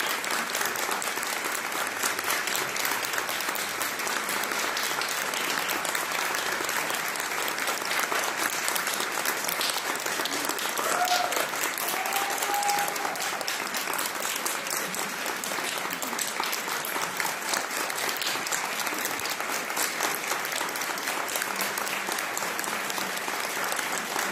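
Concert audience applauding steadily, a dense patter of many hands clapping. About eleven seconds in, a short pitched call rises above the clapping.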